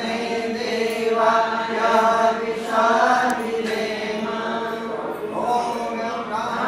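Hindu mantras being chanted in a steady, sing-song recitation with some held notes.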